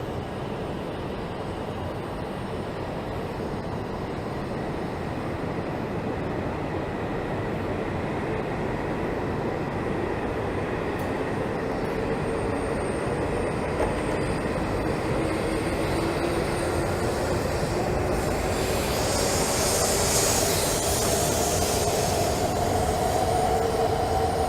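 A Shinkansen train running beside the platform: a steady rumble slowly growing louder, with a motor whine that rises gradually in pitch, typical of a train pulling out and gathering speed. A brief hiss of higher noise comes in near the end.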